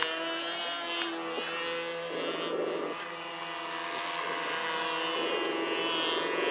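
Saito 82 four-stroke glow engine of an RC Decathlon model airplane running in flight, a steady drone whose pitch shifts slightly as the plane manoeuvres.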